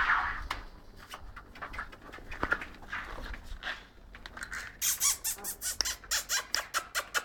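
English bulldog puppies squeaking and whimpering. In the last two seconds comes a quick run of about a dozen sharp clicks.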